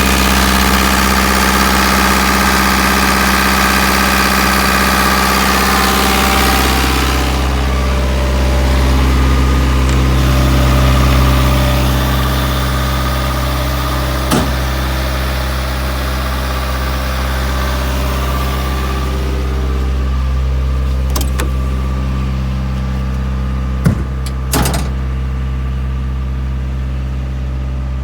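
JCB 8080 midi excavator's diesel engine running steadily. A bright hiss rides over it for the first seven seconds or so, then the engine settles to a plainer run. A few sharp clicks come in the second half.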